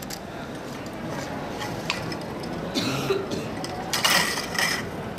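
Bolt cutters cutting barbed wire: a few sharp metallic snaps, with short bursts of the wire rattling and scraping.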